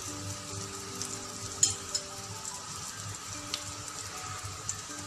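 Grated-pumpkin fritters sizzling steadily in hot cooking oil in a frying pan over a medium flame, with one sharp tap about a second and a half in.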